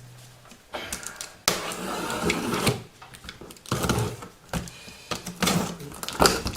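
Cardboard box and paper packaging being handled: irregular rustling and scraping with a few light knocks and clicks.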